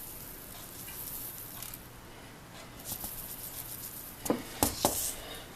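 Dry grits rustling and pattering as they are scooped into a quarter-cup measure, with three light clicks close together near the end.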